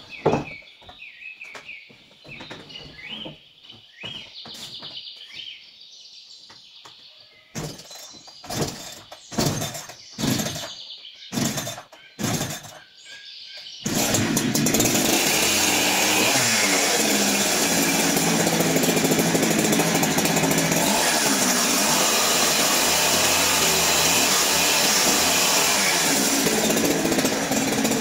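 Birds chirping, with a series of sharp knocks. About halfway through, a loud power tool starts abruptly and runs steadily.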